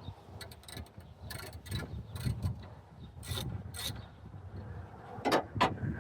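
Hand tools working on a truck: clusters of short metallic clicks and rasps, with two louder clicks near the end.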